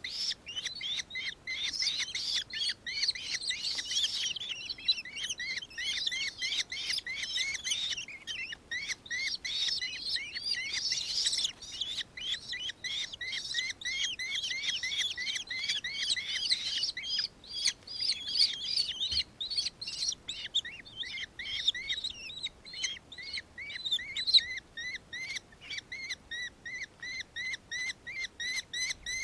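Nankeen kestrel calling: a long chatter of rapid, shrill repeated notes, crowded and overlapping at first, then settling into an even run of notes in the last few seconds.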